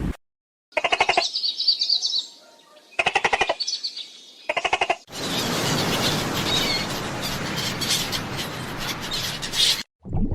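Animal calls: three short bursts of rapid rattling trills, then about five seconds of chirping over a steady rushing noise.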